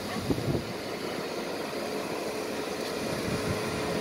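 ChS4T electric locomotive with a passenger train starting to move: a steady running hum from the locomotives. A faint steady whine comes in about two seconds in, and a couple of low knocks sound near the start.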